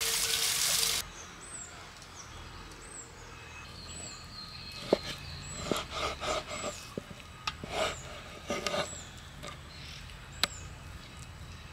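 Tap water splashing onto raw chicken in a metal colander for about a second, then a knife slicing raw chicken breast on a wooden cutting board, with several sharp knocks of the blade against the board and short scraping cuts.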